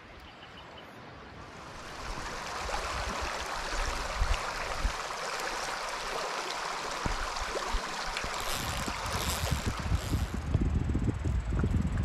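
Shallow creek running over stones, a steady rushing that swells up about two seconds in. Wind buffets the microphone in the last few seconds.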